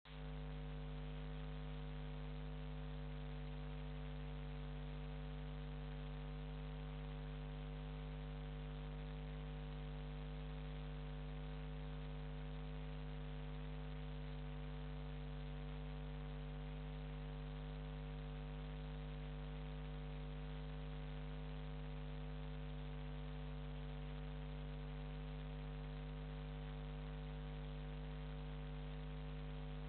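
Steady electrical mains hum: a low, constant buzz made of several fixed tones over faint hiss, unchanging throughout.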